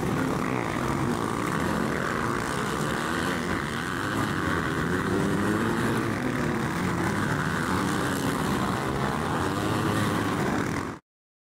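Several motocross bike engines running at race pace, their overlapping engine notes rising and falling as the riders come down the track. The sound cuts off abruptly near the end.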